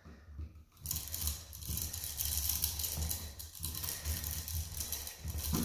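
Two bare copper ground wires being twisted together, scraping and rattling against each other in a continuous run of small scratchy clicks that starts about a second in, over a steady low hum.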